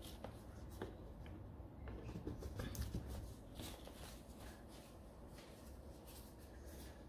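Faint handling sounds: scattered light clicks, taps and rustles of hands moving things about on a work table, busiest about two to three seconds in.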